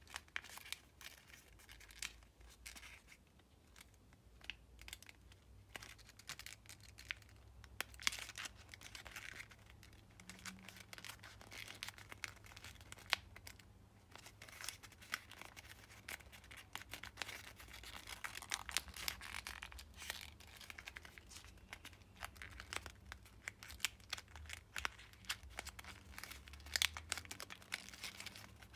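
Sheet of kami origami paper crinkling and rustling under the fingers as the flaps of a folded cube are worked into their pockets, with many small crisp ticks from the paper's folds and edges.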